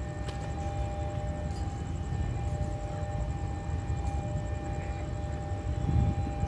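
Railway level-crossing warning alarm sounding a steady high tone, over a constant low rumble.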